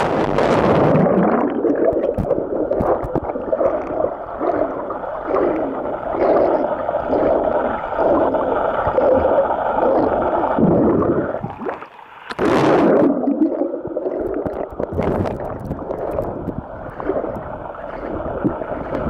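Swimming-pool water heard through a submerged camera: a muffled rushing and gurgling that surges in a rhythm of about once a second. About twelve seconds in it drops away briefly, then a short splash with a hiss as the camera breaks the surface, and the muffled underwater sound returns.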